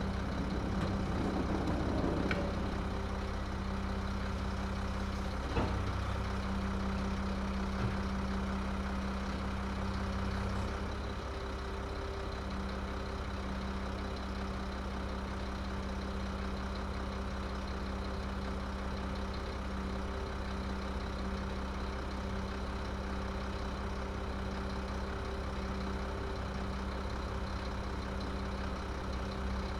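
Garbage truck engine idling steadily, with a few sharp knocks in the first eight seconds. The engine drops slightly in level about eleven seconds in and holds steady after.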